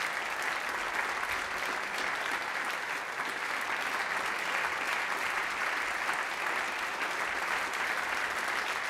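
Theatre audience applauding, a steady, even stream of many hands clapping.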